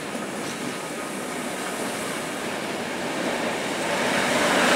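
An electric locomotive hauling an intercity passenger train approaches, its wheel-on-rail noise growing steadily louder as it nears, most sharply near the end. The locomotive is a Newag Griffin (EU160).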